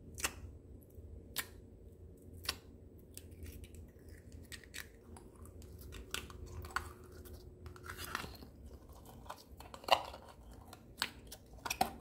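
Clear blue slime being squeezed and pulled out of a small clear tub by hand: irregular sticky clicks and pops, the loudest about ten seconds in and a quick cluster near the end.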